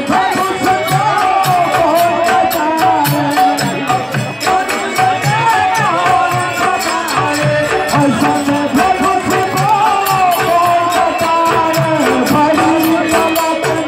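Village bhajan kirtan: a man singing a devotional melody into a microphone over a steady beat of drum and jingling hand percussion.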